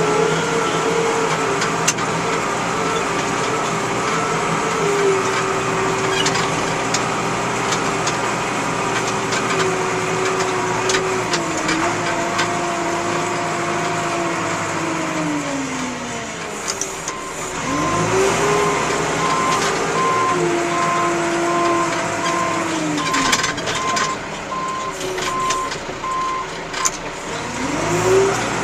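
310E backhoe loader's diesel engine working, its pitch falling off about sixteen seconds in and revving back up, and revving up again near the end. Its reversing alarm beeps steadily from about eighteen to twenty-seven seconds in.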